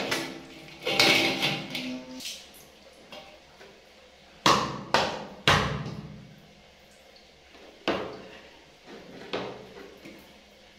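Metal shower head and hose clanking against a stainless steel washtub. There is a ringing clatter about a second in, three sharp knocks about half a second apart after about four seconds, then two single knocks near the end.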